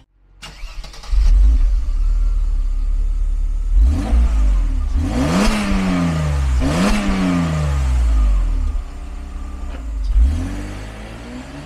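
Mercedes-Benz SL 320's 3.2-litre straight-six starting up about a second in and idling through its exhaust. It is then revved twice, each rev climbing and sinking slowly back to idle, with a shorter blip near the end.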